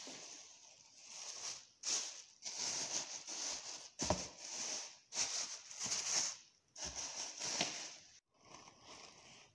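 Rustling and crinkling of a thin white cover being pulled over and tucked around a bowl of bread dough so the dough can rise. It comes in irregular bursts with short pauses, with a dull knock of handling about four seconds in and another near seven and a half seconds.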